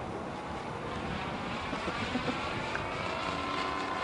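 Engine and propeller of a radio-controlled scale model P-51D Mustang in flight, a steady droning note as it passes overhead.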